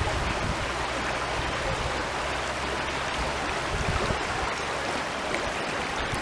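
Stream water flowing steadily, an even rushing hiss.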